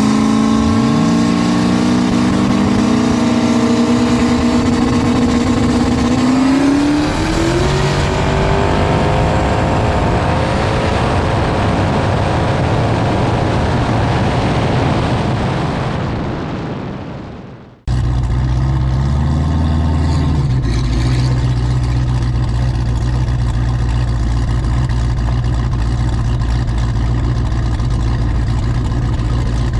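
Two turbocharged street-race Mustangs launching, their engines revving up hard with rising pitch and climbing again through a shift, then fading as they pull away. After a cut near 18 s, a steady low engine drone.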